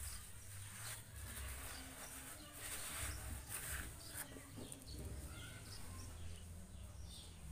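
Hands scooping and spreading dry, crumbly potting medium around a bonsai trunk in a shallow pot, an uneven rustling scrape that comes in several strokes, busiest in the middle.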